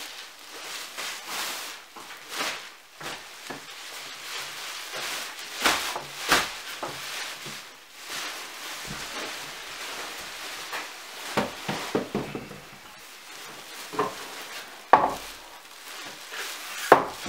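Large black plastic garbage bags rustling and crinkling as handfuls of old ceiling fill are packed into them and the bags are shaken down and gathered closed, with scattered knocks and a few sharper knocks near the end.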